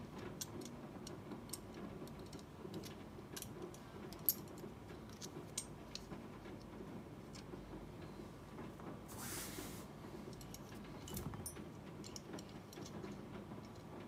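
Light, scattered metal clicks and taps as the small parts of a WE Walther P38 airsoft pistol's lower frame are worked loose by hand with a small screwdriver, with a brief rustling scrape about nine seconds in.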